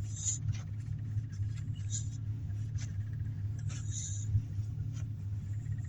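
Steady low hum of a running car, heard inside the cabin, with a few short scratchy rustles scattered through it.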